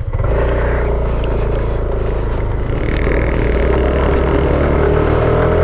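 Small motorcycle engine running at steady throttle, getting louder a fraction of a second in and holding an even pitch.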